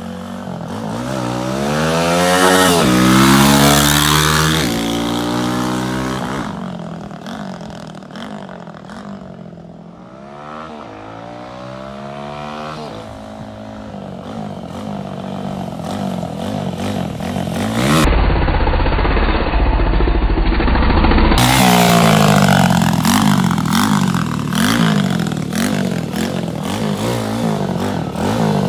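Tao Tao DBX1's oil-cooled 140cc single-cylinder dirt-bike engine revving as the bike is ridden. The pitch climbs and drops in repeated runs through the gears, loudest about three seconds in and again over the second half.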